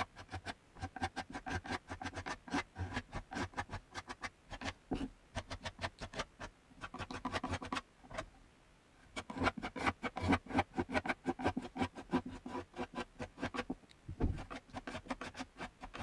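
Metal putty knife spreading and scraping wood filler into cracks in old painted wooden boards: quick repeated scratching strokes, with a short break about halfway through.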